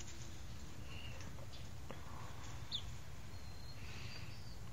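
A few faint, short high peeps from young chickens over a steady low background rumble, with a single click about two seconds in.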